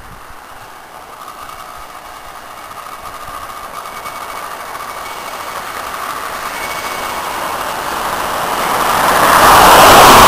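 A camper truck on the highway approaching and passing close, its road and engine noise growing steadily louder and peaking near the end. Underneath, in the first part, a faint thin whine from the small 49cc engine of a motorized bicycle coming up the road.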